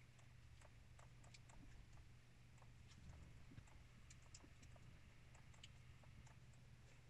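Faint, irregular small clicks from the monitor's menu controls being pressed to step through the on-screen settings, over a low steady hum; otherwise near silence.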